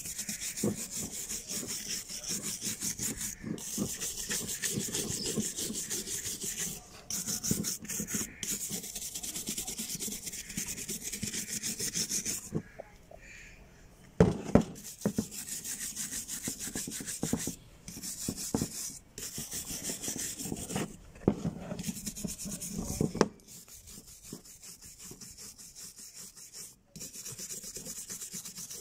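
Copper-wire hand brush scrubbing caked soil and rust off a revolver's metal, in quick back-and-forth strokes. It stops briefly about halfway, with a couple of sharp knocks.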